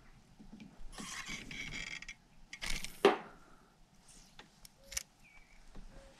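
Spinning reel being worked by hand: the reel's gears whir for about a second as the handle turns, then a louder rush ends in a sharp click, followed by a few light clicks.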